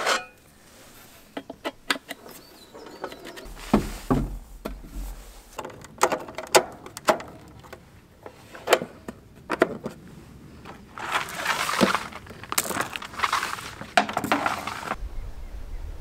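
Camping gear being handled and set up: a string of separate clicks, knocks and clatter, with a stretch of rustling about eleven to fifteen seconds in.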